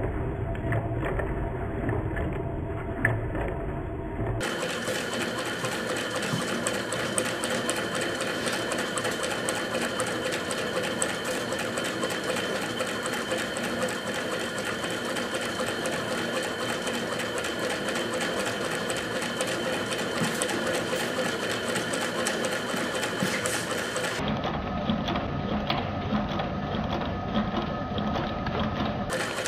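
Homemade Stirling engine running steadily, its flywheels, crank linkage and piston making a fast, even mechanical ticking while it drives a magnet through a shaker-flashlight coil to light an LED.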